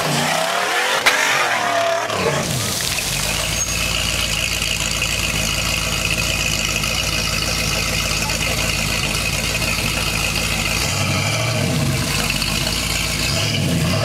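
Rock-crawler buggy's engine working hard on a steep dirt climb, its tyres spinning and throwing dust. The revs are uneven for the first couple of seconds, then held steady and high, and waver up and down again near the end.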